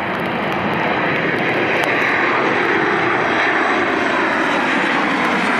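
Boeing 737-9 MAX's CFM LEAP-1B turbofan engines on low approach, passing close overhead: a loud, steady jet rush that grows a little louder about a second in, with a tone sliding down in pitch in the second half as the aircraft goes by.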